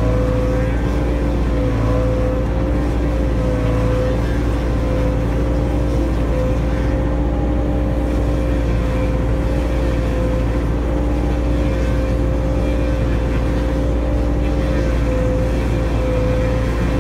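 Takeuchi TB145 mini excavator's diesel engine and hydraulics running steadily under load, driving a hydraulic stump grinder that mills down into a tree stump, heard from inside the cab. A continuous drone with a constant whine over it, and no let-up.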